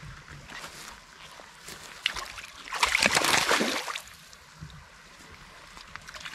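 Hooked salmon thrashing and splashing at the water's surface against the bank, one loud rough burst of splashing lasting about a second near the middle, with light water noise around it.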